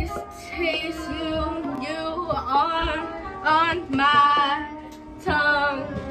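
Music with a singing voice: a wavering sung melody over steady held notes.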